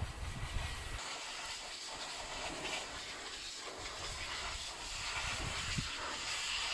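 Steady hiss of a dog grooming blower's air stream, blowing dust and debris out of the wall-plate channel in stone masonry.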